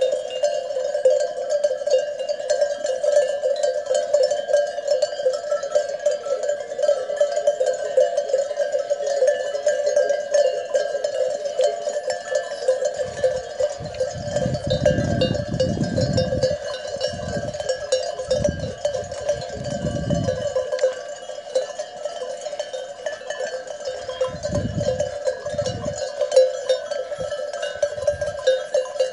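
Many bells on a grazing flock of sheep jangling together in a dense, continuous ringing. Bursts of low rumble come through about halfway in and again near the end.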